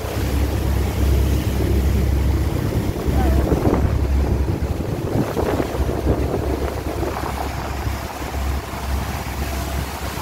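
Wind buffeting a phone microphone on the open deck of a motorboat running fast through choppy water, over a steady rush of water from the churning wake and the hull on the waves.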